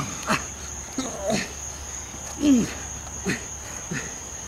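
Short, falling grunts of effort from two men grappling and striking on the ground, about one a second, the loudest about halfway through, over the steady high chirring of crickets.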